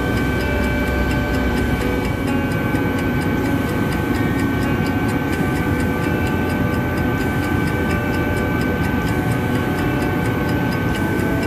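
Helicopter cabin noise in flight: a steady drone of engine and rotor with a constant high whine and a fast, regular faint ticking over it.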